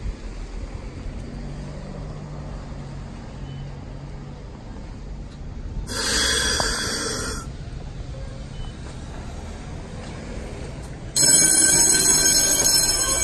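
Tram bell ringing: a short ring of about a second and a half around six seconds in, then a louder, continuous ring starting about eleven seconds in, over the low hum of the waiting tram.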